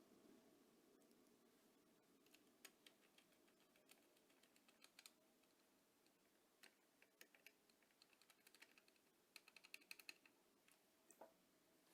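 Near silence with faint, irregular light clicks, coming in clusters about two seconds in, around five seconds, and most densely around nine to ten seconds.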